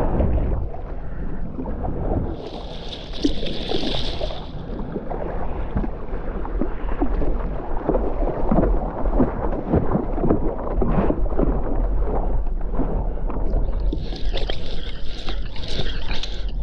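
Wind buffeting an action camera's microphone over water splashing and swishing against a paddleboard being paddled, with spray coming off the board's nose. A brighter hiss comes twice, a few seconds in and again near the end.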